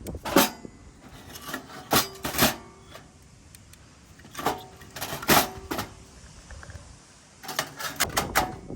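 Hard objects, likely metal camping gear, clanking and clinking in a few short groups with pauses between; some knocks leave a brief ring.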